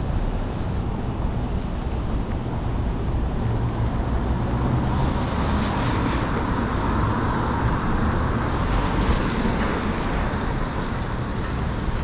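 City street traffic noise, with a vehicle passing about halfway through that swells the hiss and then fades. Wind rumbles low on the microphone throughout.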